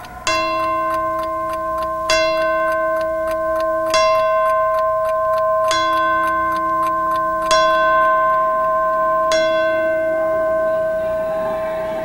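Ornate gilded clock striking the hour with its hands at twelve: six bell-like chimes about two seconds apart, each ringing on into the next.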